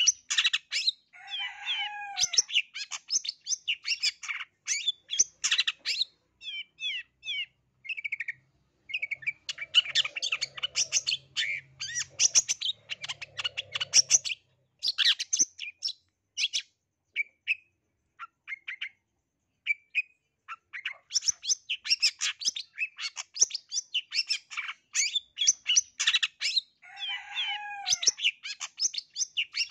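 Long-tailed shrike (cendet, black-capped 'blangkon' type) singing a rapid, varied song of quick high chattering notes packed with imitated calls of other birds. The song thins to scattered single notes in the middle, and the same lower falling phrase comes twice, about a second in and near the end.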